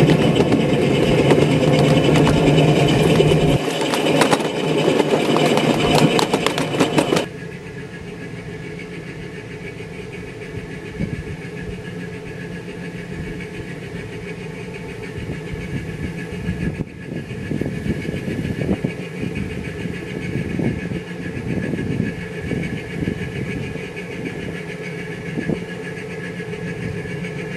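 Small diesel engine of a ride-on scale model locomotive running under way, loud and close for about seven seconds. The sound then drops suddenly to a quieter, steady running sound of the approaching train, with scattered light clicks.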